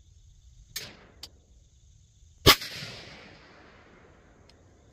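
A single AR-15 rifle shot about two and a half seconds in: a loud sharp crack with an echo that dies away over about a second and a half. A much fainter sharp crack comes about a second in.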